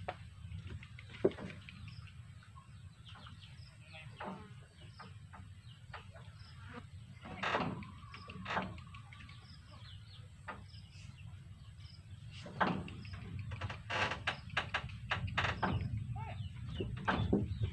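Chickens clucking and small birds chirping in short scattered calls, busier in the last few seconds, over a low steady rumble.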